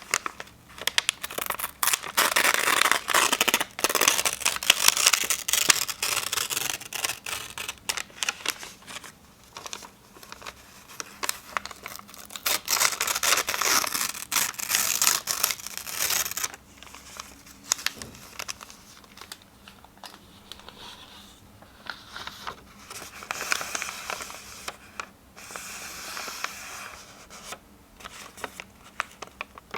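Sheets of paper being torn and crinkled close up, in long ripping strokes with quieter handling and rustling between. The tearing is loudest through the first half, then comes in shorter, softer bursts.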